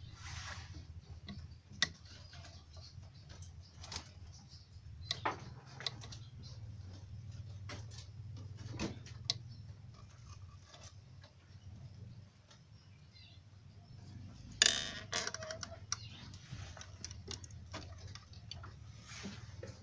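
Young rabbits moving about in a wooden hutch: irregular small clicks and scratches, with a louder rustling scrape about fifteen seconds in.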